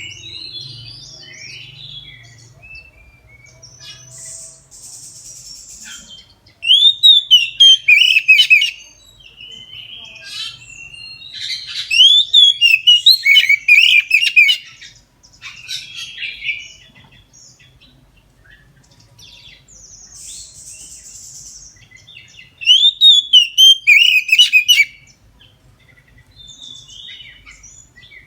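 Oriental magpie-robin (kacer) singing in full, loud song: three loud bursts of rapid, falling whistled notes, each about two seconds long, with softer chirps and whistles between them.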